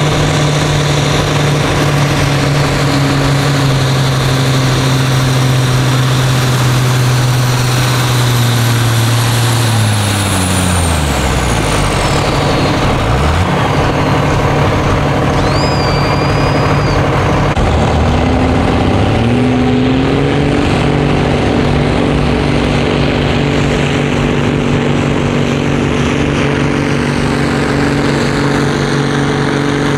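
A Ford tractor's diesel engine runs hard at full throttle, pulling a weight-transfer sled. About ten seconds in, its pitch drops steeply and a high whine falls away with it as the power comes off. A few seconds later another tractor engine revs up and holds at a steady high speed.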